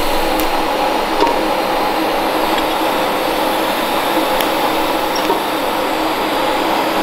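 Steady whirring hiss of a running machine, such as a fan or blower, with a few faint ticks.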